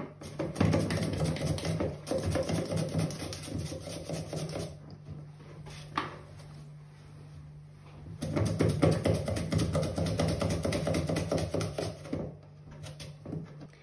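Raw potato being rubbed rapidly back and forth across the blade of a plastic mandoline slicer, a quick rasping stroke after stroke as it is cut into thin slices. The slicing comes in two spells with a short quieter pause between them.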